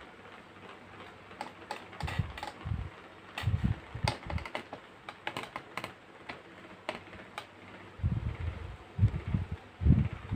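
Irregular clicks, taps and soft thumps of hands handling pipe cleaners and yarn on a canvas, in scattered clusters with a quieter stretch in the middle.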